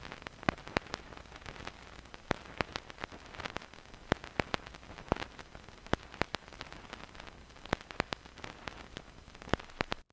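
Irregular crackling clicks over a faint steady hiss, cutting off suddenly near the end.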